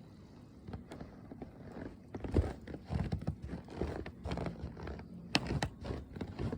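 Footsteps crunching through deep snow: a string of irregular crunches that starts about two seconds in.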